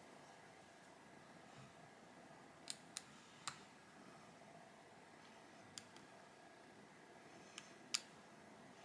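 Near silence, broken by about six faint, sharp clicks of small repair tools and tiny screws against a phone's metal and glass parts, the loudest near the end.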